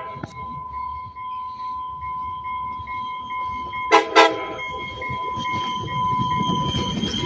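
Train horn sounding two short blasts about four seconds in, over a steady high tone. A train's rumble builds and grows louder toward the end.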